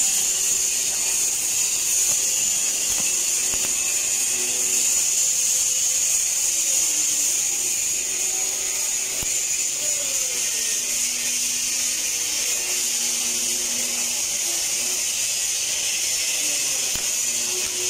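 TIG (argon) welding arc burning on steel pipe: a steady, even high-pitched hiss that holds without a break.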